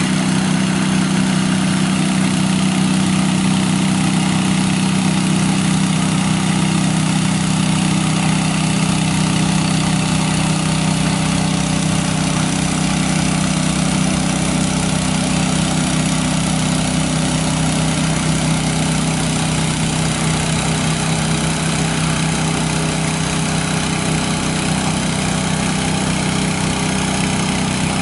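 Heavy engine of a water tanker truck running steadily at low speed, with a steady hiss of water spraying from the nozzle boom; the sound drops slightly a little over halfway through.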